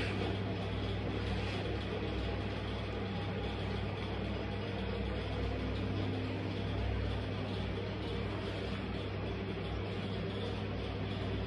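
A steady low hum with a faint hiss behind it; no stomps or crushing in between.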